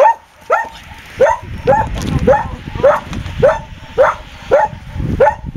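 A dog barking over and over in a steady run of short, sharp barks, about two a second.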